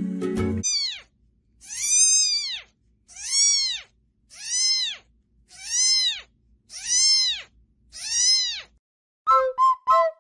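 A young kitten meowing loudly and insistently: six long calls, each rising then falling in pitch, about one every second and a quarter. Near the end, short piping flute-like notes of music begin.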